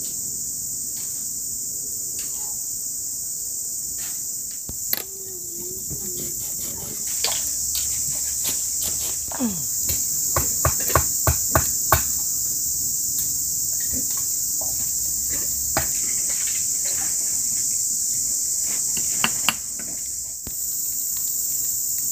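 A steady, high-pitched chorus of forest insects drones throughout. Sharp knocks cut across it: a single knock about five seconds in, a quick run of about six strikes around the middle, and two more near the end.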